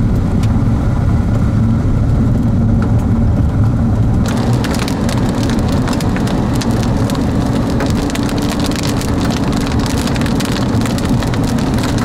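Inside a moving car: a steady engine and road drone, then, changing suddenly about four seconds in, rain hitting the windshield and roof in many small taps over tyre noise on the wet road.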